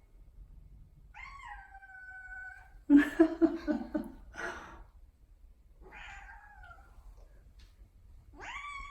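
Munchkin cat meowing several times in drawn-out, insistent calls, as a cat does when it wants something. About three seconds in there is a louder, rougher stretch of sound.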